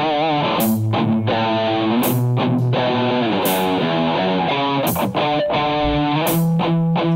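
Instrumental band music led by guitar, an electric guitar line carrying the melody over sustained chords, with bright strokes about every second and a half.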